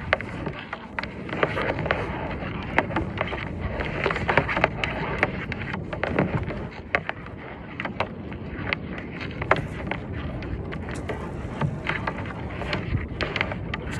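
Steady wind and water noise at the shoreline, with many short sharp clicks and knocks scattered through it.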